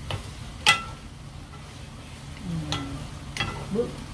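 Wooden spoons knocking against a frying pan while stirring fishcake strips: four sharp knocks with a short ring, the loudest about a second in, over a low steady hum.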